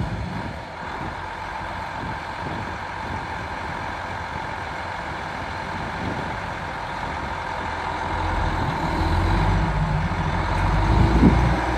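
A Versatile 2375 four-wheel-drive tractor's 375-horsepower diesel engine runs steadily, then grows louder and deeper from about eight seconds in as the tractor moves off and turns.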